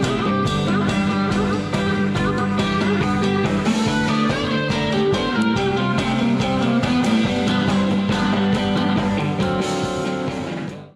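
Background rock music with electric guitar and a steady beat, fading out quickly at the very end.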